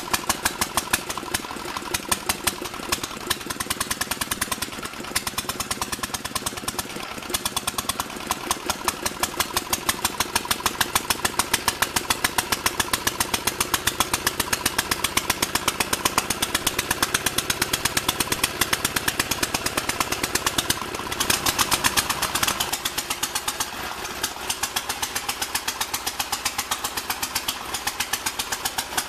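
Standard Monarch garden tractor's single-cylinder air-cooled engine running on a cold start, with a sharp, rapid firing beat that is a little uneven in the first few seconds and then settles steadier.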